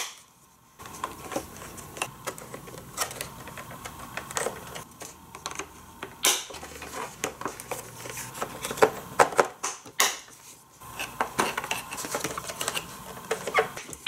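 Hard plastic toy track pieces being fitted together by hand: irregular clicking and clattering, with a few louder snaps as pieces lock into place.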